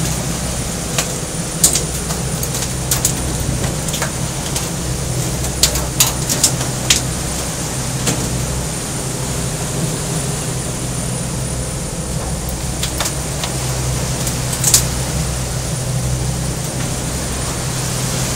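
A boat's engine running steadily under way, a constant low drone, with a scattering of sharp clicks and knocks on top.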